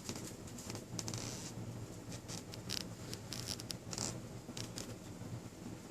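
A cat licking another cat's ear: a run of short, irregular licking strokes.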